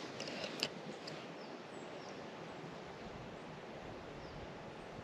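Steady river ambience: an even hiss of flowing water, with a few faint, short, high bird chirps and a couple of small clicks about half a second in.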